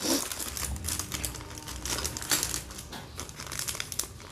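Clear plastic packets crinkling as bangles packed in them are handled and pulled out of a box.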